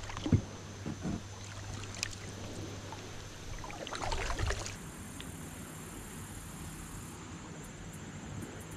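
A few light knocks and water sloshing from a plastic kayak as it is handled on the water, with a short splashier stretch about four seconds in. About five seconds in the sound changes abruptly to a faint steady hiss.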